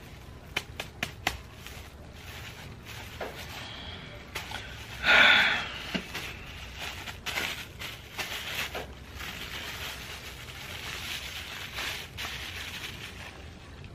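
Clear plastic bag around a chapati roll rustling and crinkling as it is handled, with a few sharp clicks about a second in and a brief louder burst about five seconds in.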